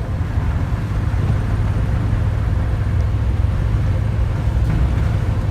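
Duramax diesel pickup truck driving: a loud, steady low rumble of engine and road noise.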